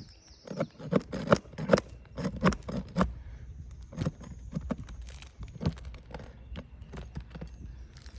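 Sharp knocks and taps of a roof snake working old roofing nails loose from under asphalt shingles: a quick irregular run of knocks over the first three seconds, then scattered lighter taps over a low rumble.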